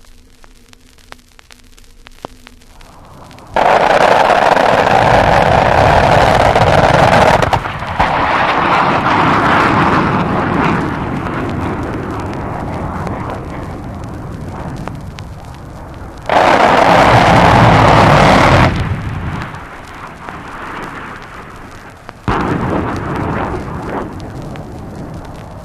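Vinyl LP field recording of USAF aircraft attacking ground targets: three loud bursts of noise that start suddenly and die away over several seconds. Before the first burst there is only record surface crackle and a faint hum.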